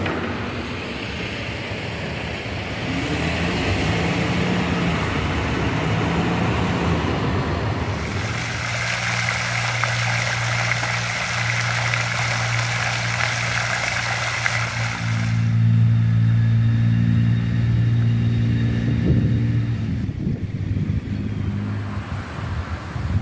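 Road traffic: motor vehicle engines running and accelerating, a steady low engine hum with a stretch of louder hiss in the middle.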